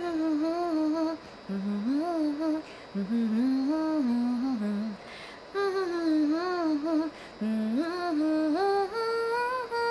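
A woman humming a lilting tune without words, in several short phrases with sliding pitch.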